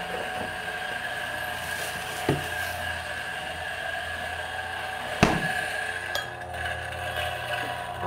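Two sharp knocks of hard objects, one about two seconds in and a louder one about five seconds in, over a steady hum of several tones.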